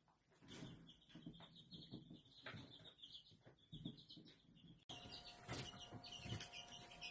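Green ring-necked parakeet chattering faintly in quick runs of short high notes, with soft knocks underneath. About five seconds in, a steady faint hum joins as the chatter goes on.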